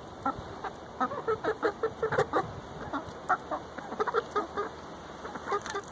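Several dust-bathing hens clucking in a steady run of short calls, a few every second.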